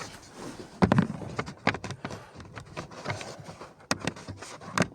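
Irregular clicks, knocks and rustles of hands and a tool working at plastic trim and parts under a car dashboard, with the loudest knocks about a second in and again near the end.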